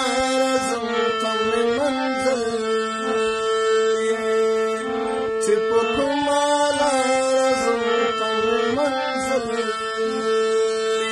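A man singing a Pashto ghazal in long held notes that waver and slide between pitches, with a steady musical accompaniment beneath.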